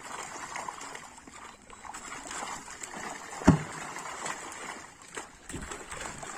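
Water splashing and sloshing as fish thrash in a seine net drawn in to the bank, with one loud thump about halfway through.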